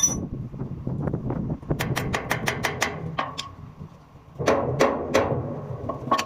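Metal tools knocking on metal during a hydrant repair: a quick run of about eight light taps, then three heavier strikes, each ringing briefly.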